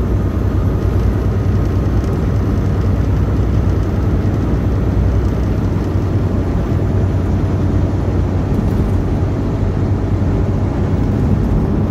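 Steady low drone of a Volvo VNL860 semi truck's engine and tyre noise, heard from inside the cab while cruising at highway speed.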